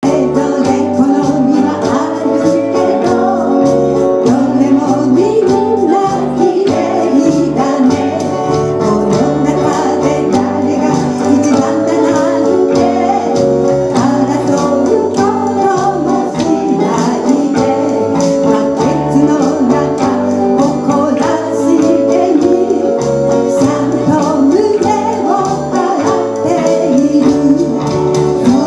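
A small live band with guitars and a drum kit playing a song with a steady beat while a woman sings the melody into a microphone.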